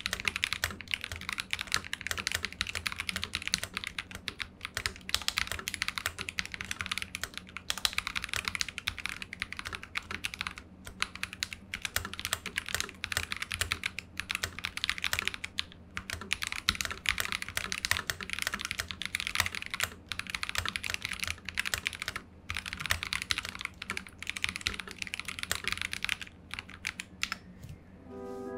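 Continuous typing on a Keydous NJ80 mechanical keyboard with stock Akko Radiant Red linear switches, an aluminium plate, plate foam and lubed stock stabilisers, tilted up on its back feet: a dense stream of keystroke clacks that thins out shortly before the end.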